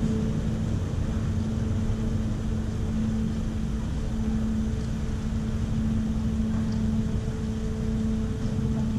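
Steady low engine drone with a constant hum: a car ferry's diesel engines running as it eases in toward the landing ramp.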